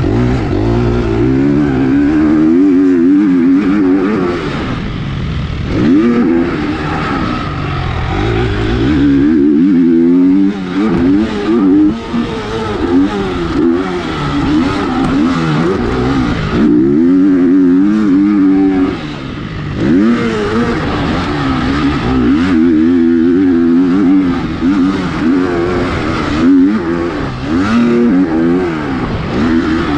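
Motocross bike engine, heard from the rider's helmet camera, revving hard and falling back again and again as it is ridden round a dirt track. The pitch climbs through each gear and drops whenever the throttle is shut, with a few short lulls.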